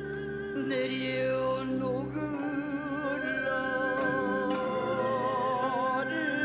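A male changgeuk singer sings a slow line of long, wavering notes with vibrato. Instruments underneath hold long sustained notes.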